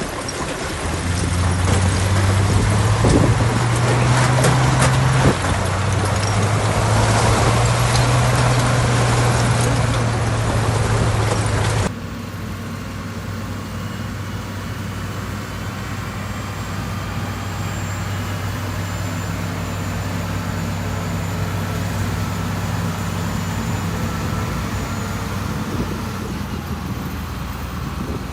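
Heavy diesel construction machinery running, a steady low engine drone with rough noise over it. About twelve seconds in it cuts abruptly to a quieter, smoother diesel drone.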